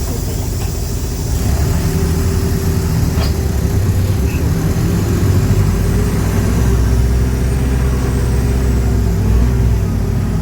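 Mercedes-Benz OF-1418 bus's front-mounted diesel engine pulling under load, rising in pitch and getting louder from about a second and a half in, then running steadily.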